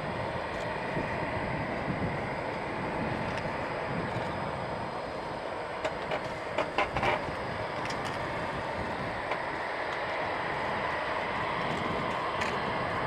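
Eurofighter Typhoon fighters taxiing, their twin EJ200 turbofan engines a steady distant rushing noise. A short run of clicks about halfway through.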